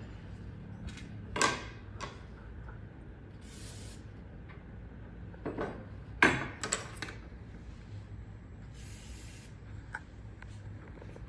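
Aerosol gun cleaner sprayed in two short hissing bursts onto disassembled Winchester SX4 shotgun parts, the first about three seconds in and the second near nine seconds. Around them come knocks and rubbing as the metal parts and the can are handled; the sharpest knocks fall about a second and a half in and about six seconds in.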